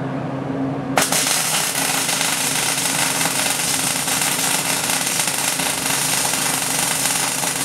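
MIG welder arc crackling steadily as a bead is run on steel plate. It strikes abruptly about a second in and runs without a break.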